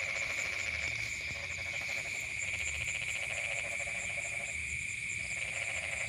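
Night chorus of insects and frogs: a steady high-pitched insect trill over a rapid, pulsing frog chorus. The frog chorus drops out briefly about five seconds in.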